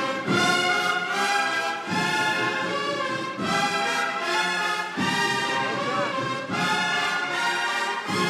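Uniformed Holy Week processional band of cornets and other brass playing a procession march: loud held chords in phrases that break about every one and a half seconds.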